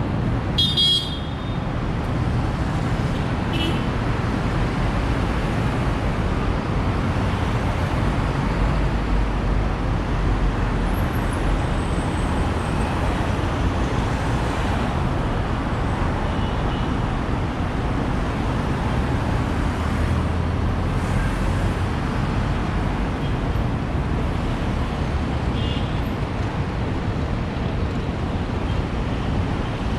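Steady city road traffic: the rumble of passing cars and buses circling a busy roundabout, with a short high-pitched sound about a second in.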